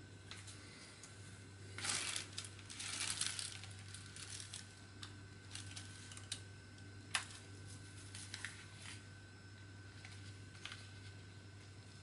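Clear plastic wrapping crinkling as it is handled, loudest from about two to three and a half seconds in, then scattered small clicks and taps as a USB cable plug is fitted into a car charger, with one sharp click about seven seconds in. A steady low hum runs underneath.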